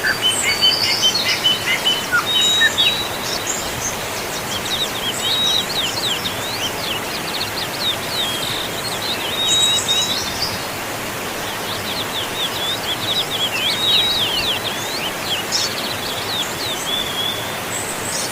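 Steady rush of a waterfall, with birds calling over it throughout in many quick, high chirps, sweeping notes and short whistles.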